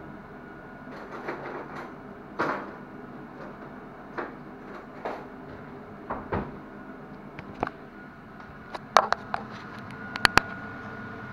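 Scattered knocks, clatters and short scrapes of kitchen utensils and dishes over a steady background hum. Near the end come a few sharp, loud clicks and knocks as the camera is handled and picked up.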